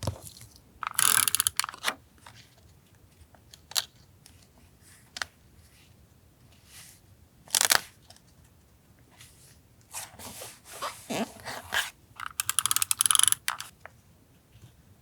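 Paper being handled for a journal collage: several short bursts of crinkling and tearing, about a second each, the loudest near the end, with a few single taps between.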